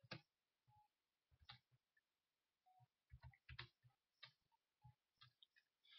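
Near silence broken by faint, scattered clicks of computer keyboard keys being typed, with a quick cluster about three and a half seconds in.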